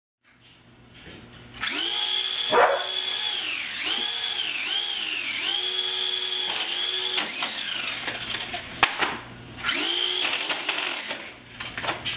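Toy flying saucer (UFO) giving out a loud whine that swoops up and down in pitch over and over, like a sci-fi siren, for several seconds, then sounding again briefly later. There is a sharp click between the two bursts, and a few short knocks near the end.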